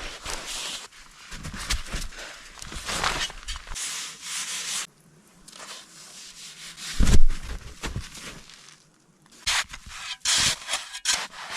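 Hand tool scraping and cutting into packed snow in a run of irregular gritty strokes, with a heavy thump about seven seconds in.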